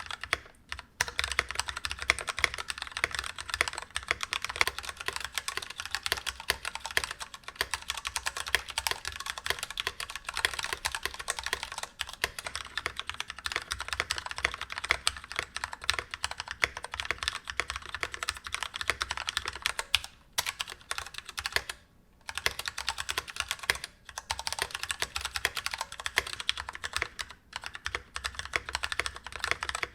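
Fast, steady typing on an assembled NK65 mechanical keyboard, a dense stream of key clicks broken by a few short pauses in the second half.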